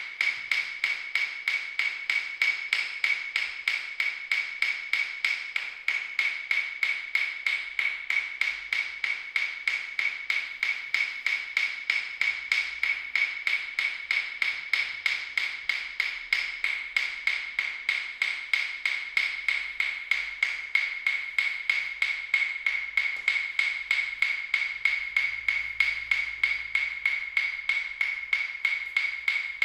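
Fast, even ticking that never breaks, several sharp wood-block-like clicks a second.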